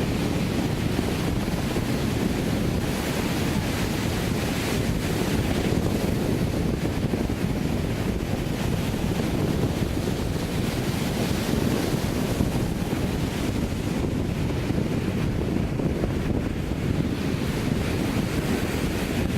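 Sea surf breaking and washing onto the beach in a continuous wash that swells and eases, with wind buffeting the microphone and adding a steady low rumble.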